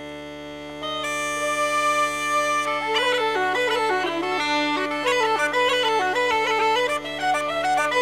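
Bagpipe music: steady drones, a single held note from about a second in, then a melody starting about three seconds in.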